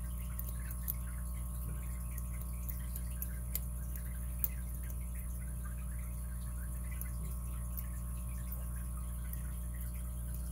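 A steady low electrical hum, with a few faint small clicks and scrapes of a lock pick working the pin stack of a 5-pin CHUBB brass padlock under tension.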